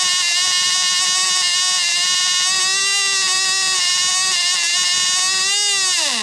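Cox .010 Tee Dee, a tiny two-stroke glow engine, running at a high-pitched, slightly wavering buzz while being run in on a rich mixture. Near the end it surges up briefly, then winds down with a steeply falling pitch: it has run out of fuel and is stopping.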